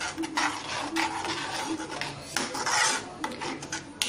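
A spatula scraping around a non-stick pan as it stirs a thick, bubbling curry gravy, in a run of rasping strokes.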